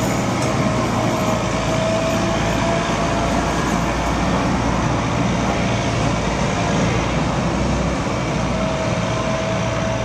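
Diesel engine of a road-rail excavator running steadily as the machine travels along the railway track, with a thin steady whine that fades out midway and returns near the end.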